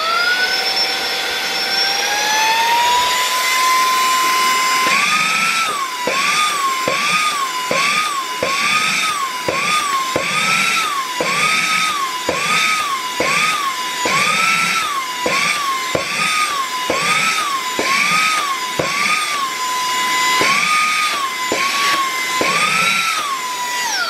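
Brushless handheld mini vacuum-blower running with a high whine that climbs as the motor spins up over the first few seconds. From about five seconds in, the pitch jumps up and back again in quick humps, about one a second, with light knocks, as the suction nozzle grips a weighted cardboard box and loses its hold while trying to lift it. The motor winds down at the very end.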